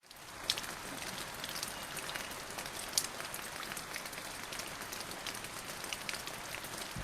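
Steady rain sound effect: an even hiss of falling rain with scattered sharp drop taps, cutting in suddenly.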